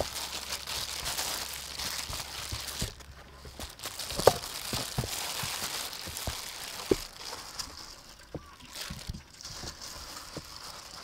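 Hands working flour into raw chicken drumsticks in a metal tray: soft rustling and crinkling of flour and a plastic glove, with scattered sharp knocks, the loudest about four seconds in.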